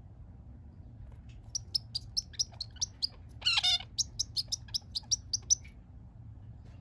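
Male zebra finch chirping: a quick run of short, high notes, several a second, broken about halfway by one longer buzzy note.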